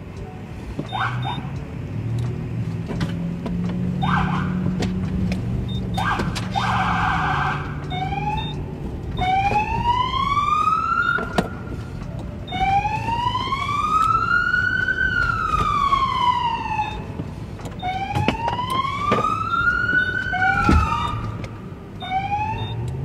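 Police car siren: a few short blips and a brief buzzing tone at first, then from about eight seconds in a wail that rises and falls in long sweeps, repeating. A vehicle engine runs underneath.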